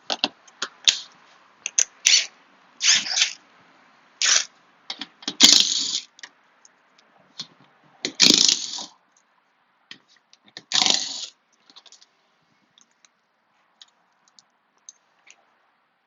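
Hand tools working the bolts of a car's underbody shield: irregular metallic clicks and clinks with several scraping, rattling bursts about a second long, thinning out to scattered ticks near the end.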